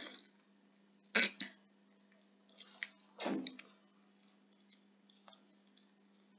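Short breath and throat noises close to the microphone, about a second in and again near the middle, then a few faint clicks, over a steady low hum.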